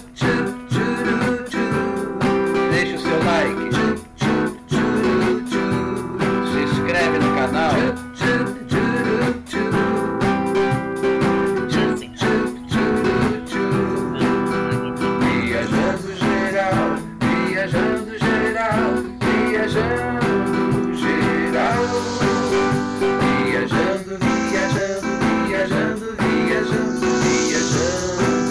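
Background music: an acoustic guitar song with a singing voice.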